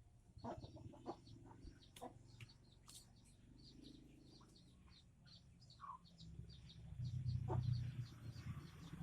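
Faint outdoor ambience of small bird or animal calls: short high chirps repeating several times a second, with a few louder single calls. A low rumble rises for about two seconds near the end.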